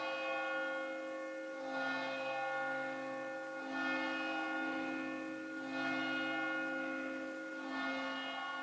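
Church bells ringing slowly, a fresh stroke about every two seconds over the long hum of the earlier strokes.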